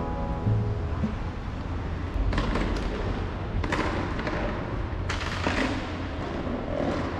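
Outdoor city street ambience: a steady low rumble of traffic, with several brief rushes of noise about two, three and a half, and five seconds in.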